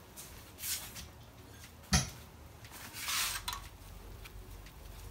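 Metal hand tools clinking and scraping against a cast-iron engine block, with one sharp metal knock about two seconds in.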